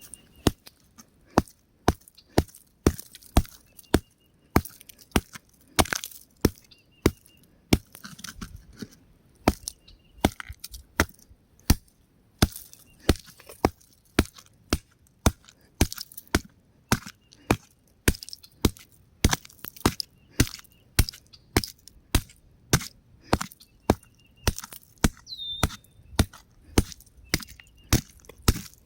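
Rock cracking and crumbling under a long run of sharp, separate cracks, about two a second at uneven spacing.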